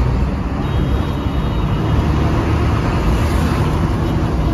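Bus engine running, heard from inside the passenger cabin as a steady low rumble.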